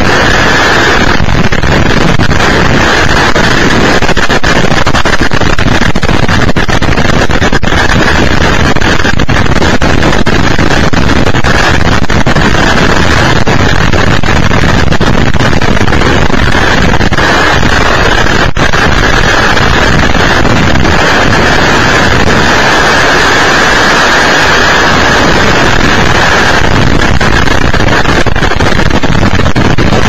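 Violent storm wind from a small tornado and its trailing straight-line winds, blowing steadily and loudly across a security camera's microphone. The microphone is overloaded to the point of distortion.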